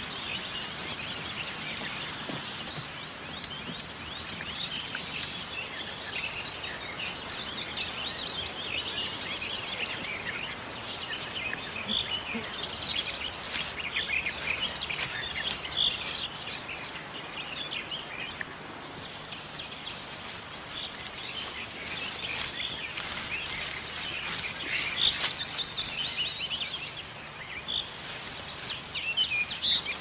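Many small songbirds chirping and singing at once in a forest, over a steady low hiss. From about twelve seconds in, and again in the second half, short crackling clicks come in among the birdsong.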